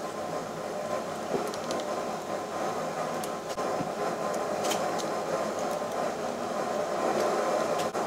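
A machine running steadily, with a faint steady high tone and a few light clicks.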